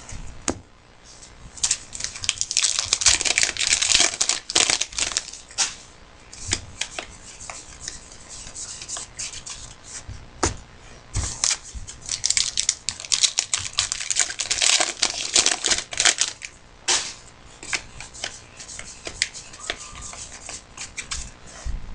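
Card-pack wrappers being torn open and crinkled by hand, in two rasping stretches with sharp crackles between, while trading cards are handled.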